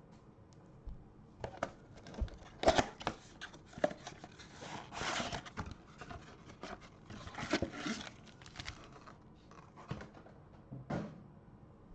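Packaging of a 2021 Bowman Mega Box of baseball cards being torn open and crinkled by hand, in irregular rustling and tearing bursts with short pauses between.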